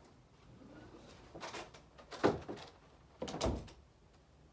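A door being moved and shut: a few knocks and clunks, the sharpest about two seconds in, then a heavier low thud near the end.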